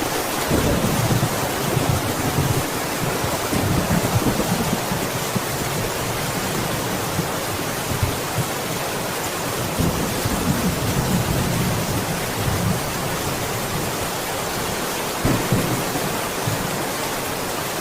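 Steady heavy rain, an even hiss, with low rumbles of thunder swelling underneath in the first few seconds and again around ten seconds in.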